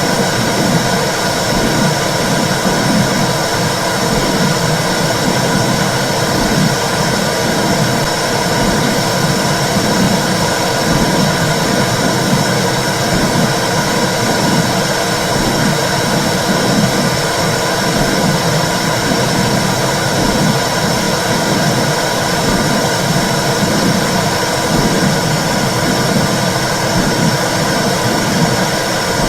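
Womb sound for soothing babies: a loud, steady whooshing noise with a soft regular pulse running through it, like blood flow and heartbeat heard from inside the uterus.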